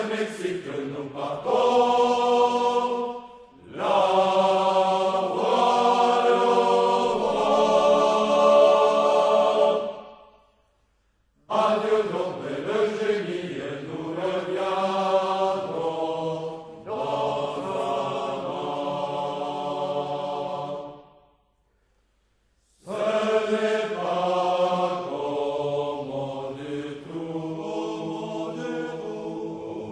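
A choir of men's voices singing a slow song in long, held phrases. The singing breaks off briefly twice, about a third of the way in and again about two thirds in.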